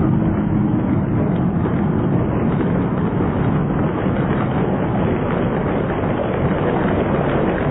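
Audience applauding steadily in a large hall, acclaiming a point just awarded.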